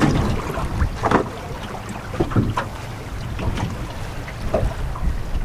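Wind rumbling on the microphone over water lapping against a small boat's hull, with a few short knocks and splashes scattered through.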